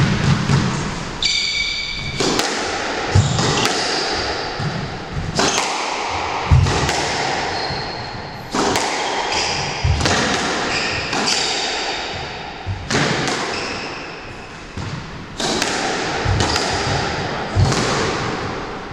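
Squash rally: the ball cracking off rackets and striking the court walls about once a second, each hit ringing briefly in the enclosed court, with shoes squeaking on the wooden floor now and then.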